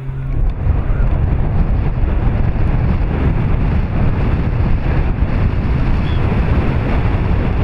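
Wind buffeting the microphone: a loud, rough, steady rumble that swells in about half a second in.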